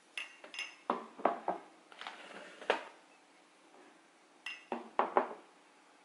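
A drinking glass and a ceramic mug clinking against each other and knocking down onto a wooden countertop: a couple of bright ringing clinks and a run of knocks in the first three seconds, then another clink and more knocks about a second before the end.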